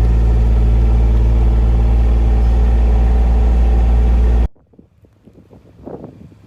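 A vehicle engine running steadily at a low, even pitch, cut off abruptly about four and a half seconds in; then gusting wind on the microphone rises.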